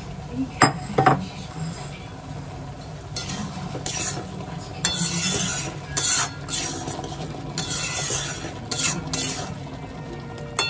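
A spoon stirring and scraping food in a cooking pan, with two sharp clinks against the pan about half a second and a second in, then a series of scraping strokes. The food sizzles under the stirring.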